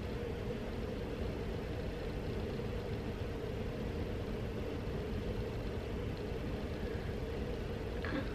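A steady, unchanging low hum with a faint drone in the middle of the range, like machine or room noise, with nothing else standing out.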